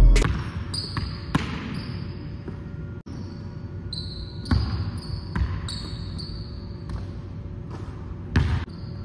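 A basketball dribbled on a hardwood gym floor: irregular bounces, each ringing in the large hall. Short high sneaker squeaks come and go between them.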